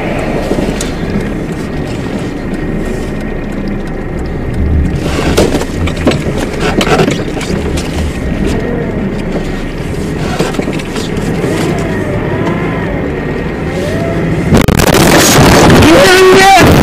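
A car crash heard from its own dash cam: steady engine and tyre noise on a snowy road, a cluster of knocks and bangs about five to seven seconds in as the car leaves the road, then a much louder rush of crashing noise near the end as the car hits and the camera is thrown loose.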